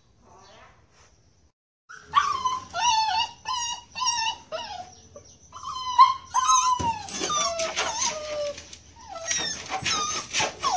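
Puppies whining and crying, a string of high-pitched pleading whimpers and yelps that starts about two seconds in, some cries sliding down in pitch. It is insistent attention-seeking whining.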